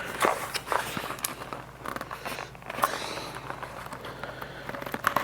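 Packaging being handled and worked open: irregular clicks, scrapes and rustling.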